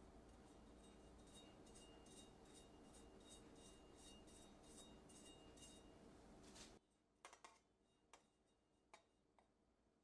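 Near silence: faint steady room noise with light, evenly spaced ticks, which drops away abruptly about seven seconds in, leaving a few isolated soft clicks.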